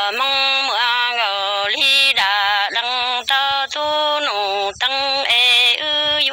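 A solo voice singing Hmong kwv txhiaj, traditional sung poetry, without accompaniment: long held notes with a wavering vibrato that slide downward at phrase ends, broken by short pauses for breath.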